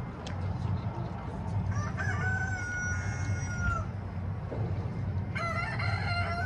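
A rooster crowing twice, about three and a half seconds apart. Each crow is a few short notes followed by a long held note that drops off at the end.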